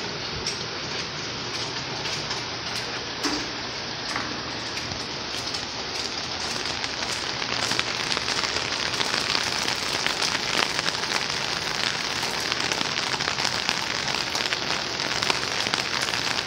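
Tropical-storm rain pouring down steadily, a dense patter of drops on hard surfaces, growing louder about eight seconds in.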